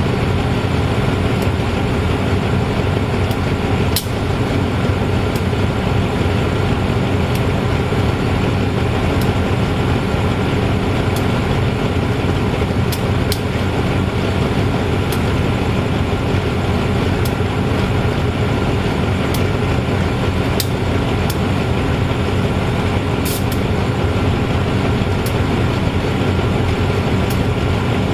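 GEA-class GE diesel-electric locomotive standing and idling, a steady low engine drone that does not change. Faint short ticks come about once a second.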